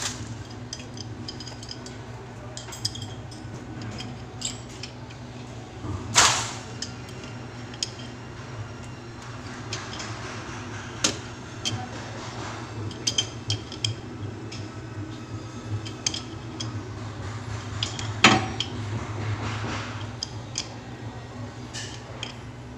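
Metal tool clinks and scrapes as pliers grip and turn a small threaded plumbing fitting under a sink counter, with scattered light clicks and two louder knocks, about six seconds in and again about eighteen seconds in, over a steady low hum.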